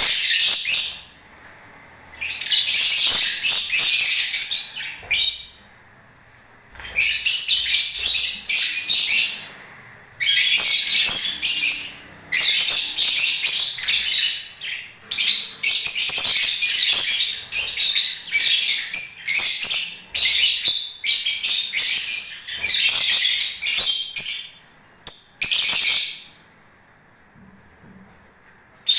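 Lovebirds chattering in shrill, high-pitched bouts lasting one to three seconds, with short pauses between them and a longer pause near the end.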